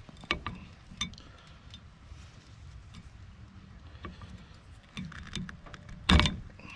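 Small metallic clicks and ticks of needle-nose pliers working a steel cotter pin bent over an outboard propeller's castle nut, with a louder knock about six seconds in.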